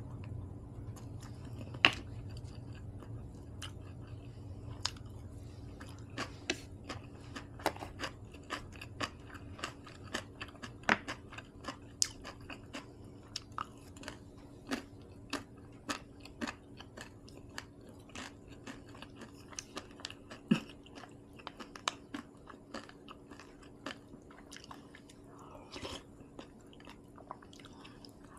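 A person chewing and eating close to the microphone, with many quick, irregular wet mouth clicks and occasional crunches, from a meal of rice, kimchi and seaweed soup.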